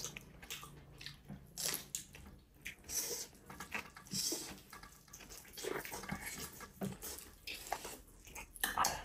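Faint eating sounds: rice and curry being chewed, with small wet smacks and clicks at an irregular pace.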